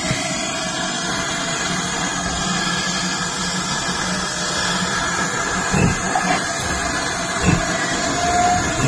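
Steam tank locomotive 4277, a GWR 4200-class 2-8-0T, hissing steam as it starts to pull out of the platform after its whistle, with two louder beats about six and seven and a half seconds in.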